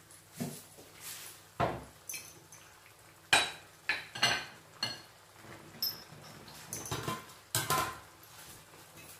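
Glass and metal kitchenware clinking and knocking on a worktop as things are set down and picked up. It is a string of sharp clinks, some ringing briefly, with the loudest about three and a half seconds in.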